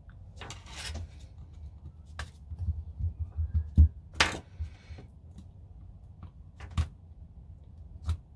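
Screws being backed out of a Nuprol airsoft M4 version 2 gearbox shell with a T-handle hex key and set down on the work mat: scattered light clicks and knocks of metal, with a couple of brief rustles of handling.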